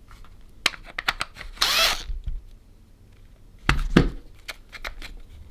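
Plastic clicks and knocks from handling a cordless drill and its battery pack, with a short scraping slide about one and a half seconds in and a louder clatter of knocks about four seconds in.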